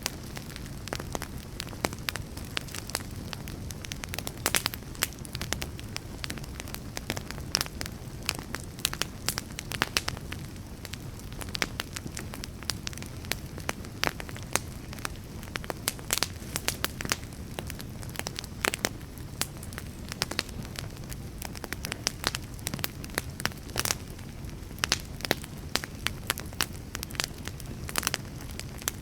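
Wood fire burning with a steady low rumble and frequent, irregular sharp crackles and pops of the burning logs.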